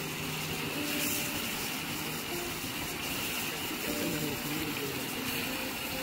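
Prawns deep-frying in hot oil in a wok: a steady sizzle and bubbling.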